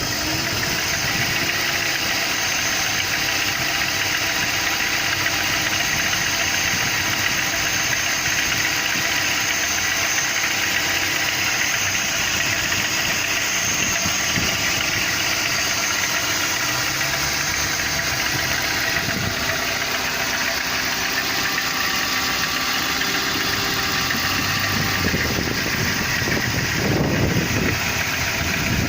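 BMW E39 528i's 2.8-litre straight-six running steadily at slightly raised revs while still cold, with a rattling noise in its running.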